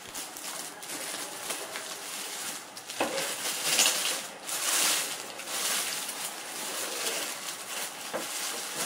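Clear plastic protective bag crinkling and rustling as the espresso machine wrapped in it is handled, loudest around four to five seconds in, with a light knock about three seconds in.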